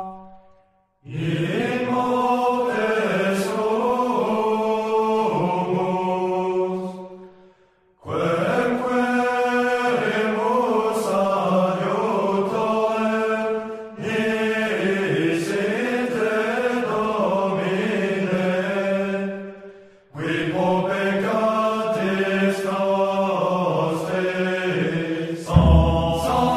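Latin plainchant sung in long sustained notes, in phrases of about six seconds with short pauses between them. A low rumble joins near the end.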